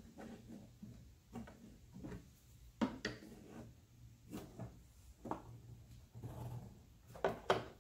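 Scattered light knocks and rubbing as a thin sheet of SmartCore vinyl flooring is pressed into the bottom of a wooden drawer, its edges pushed into the groove with a scraper. The sharpest knocks come about three seconds in and twice near the end.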